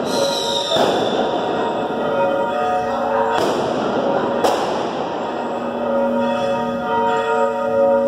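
Church bells swung from hand-pulled ropes, ringing with several overlapping tones that grow stronger over the last few seconds. Four loud fireworks bangs fall among them in the first half.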